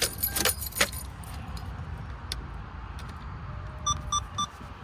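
Keys jingling and clicking in the first second, as the car's electrics are switched on to test the power mirror, over a steady low hum. About four seconds in, three short, evenly spaced electronic beeps.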